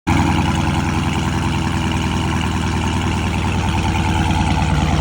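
Car engine idling steadily, cutting in suddenly out of silence.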